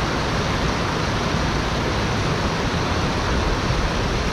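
Shallow stream rushing over rocks through a small riffle: a steady rush of water.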